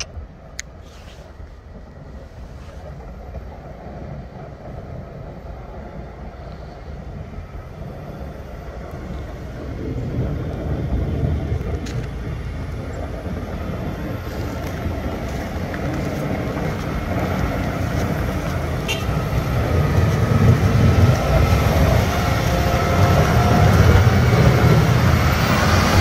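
Snow plow, a loader with a front blade, running on the street and getting steadily louder as it approaches and passes close; a faint whine joins in near the end.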